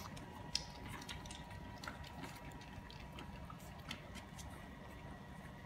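Faint wet smacking and scattered small clicks of puppies suckling from their mother dog.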